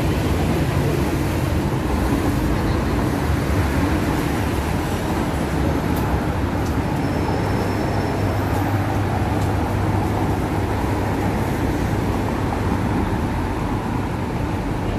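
Steady city traffic noise from buses, minibuses and cars running along a busy multi-lane street: a continuous low rumble with no single vehicle standing out.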